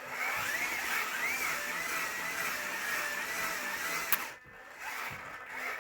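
Grave Digger Freestyle Force RC monster truck's small electric drive motors whining as it spins in a wheelie. The whine's pitch wavers up and down, cuts out about four seconds in, and briefly comes back near the end.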